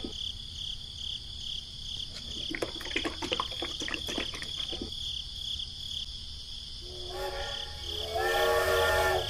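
Crickets chirping steadily, with scattered soft clicks in the first half. From about seven seconds in, a toy train's electronic horn sounds as a held chord of steady tones, stepping up in pitch and growing louder toward the end.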